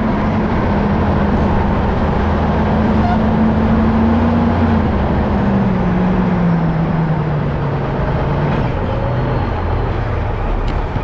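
Self-propelled forage harvester running steadily while chopping grass silage, its hum dropping in pitch about halfway through.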